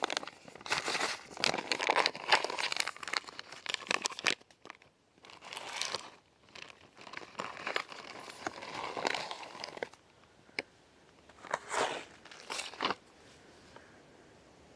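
Plastic snack packets and a clear plastic zip-lock bag crinkling as they are handled and packed into the bag. The rustling is dense for the first few seconds, then comes in sparser bursts and stops near the end.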